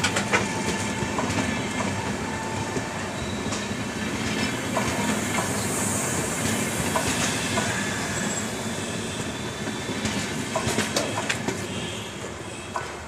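Passenger train coaches rolling past close by: a steady rumble with wheels clattering over the rail joints in bunches of sharp knocks. The sound falls away near the end as the last coach passes.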